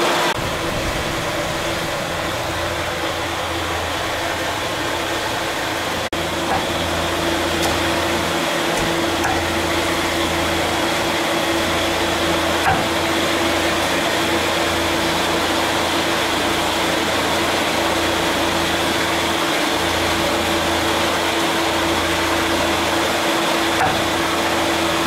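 Steady mechanical drone, a fan or motor running with an even hiss and a constant hum. A few faint knocks of a cleaver chopping on a wooden block come through about halfway and near the end.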